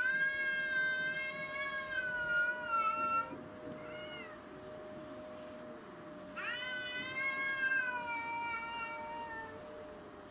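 Domestic cat yowling at another cat in a face-off, a warning yowl. One long drawn-out yowl opens, a short call follows about four seconds in, and a second long yowl sinks slightly in pitch toward its end.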